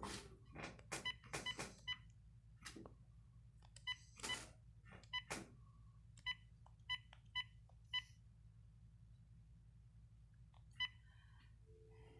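About a dozen short electronic beeps at irregular intervals, mixed with soft clicks and a brief noisy burst about four seconds in.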